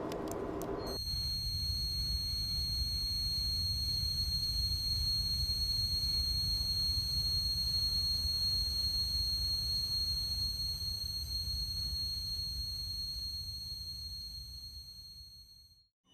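A steady high-pitched ringing tone held over a low rumble, starting about a second in and fading away just before the end: a sustained whine laid over a train carriage scene.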